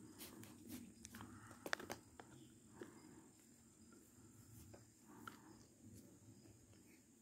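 Near silence: faint outdoor ambience with a steady high hum and a few soft clicks, the loudest about a second and a half in.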